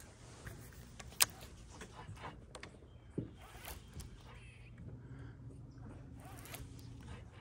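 A fishing reel being cranked, giving a run of quick ticks and rasps, with a sharp click about a second in and another about three seconds in, over a low steady hum.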